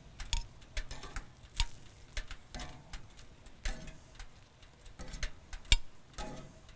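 Metal tongs clicking and scraping on grill grates as grilled baby artichokes are picked off: a run of sharp, uneven clicks, the loudest a little before the end.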